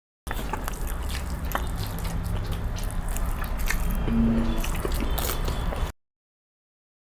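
Close-up eating sounds: wet chewing and many small sharp clicks of food being bitten and mixed, over a low steady hum. The audio drops out completely at the very start and about six seconds in.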